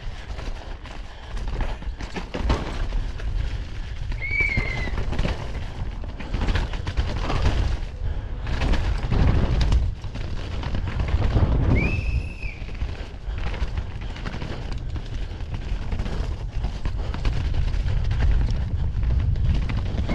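Downhill mountain bike ridden fast over a rough dirt trail: wind buffeting the camera's microphone with a heavy rumble, and the bike rattling and knocking over bumps and roots. Brief high squeals about four seconds in and again about twelve seconds in.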